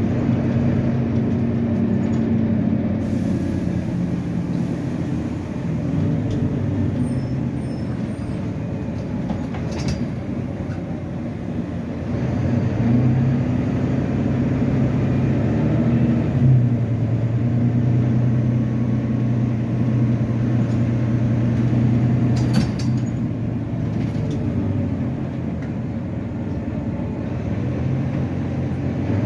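Volvo B9TL double-decker bus's nine-litre six-cylinder diesel engine running on the move, its engine note shifting up and down in steps as it pulls and changes gear.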